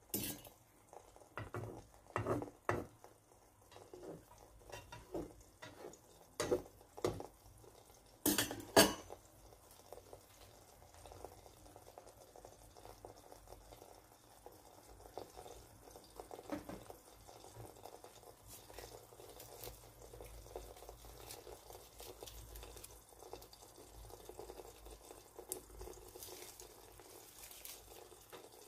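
Sharp clinks and clatters of kitchenware, several in the first nine seconds and loudest about eight to nine seconds in, then a faint, steady sizzle of beaten eggs cooking in a frying pan with a few small ticks.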